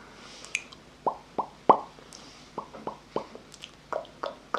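ASMR mouth sounds: a string of wet mouth pops and tongue clicks, irregularly spaced, several with a short pitch that drops quickly. The loudest pop comes about halfway through.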